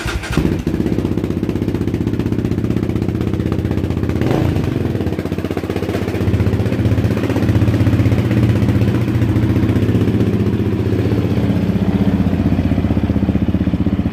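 2017 Yamaha Raptor 700R ATV's single-cylinder engine running through an FMF full exhaust with Powerbomb header and silencer, air box fitted. It runs steadily, with a quick throttle blip about four seconds in, then runs a little louder from about six seconds on.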